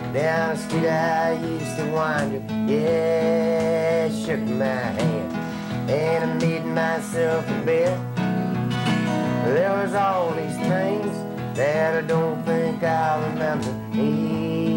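Country song with strummed acoustic guitar and a voice singing a wavering melody over it.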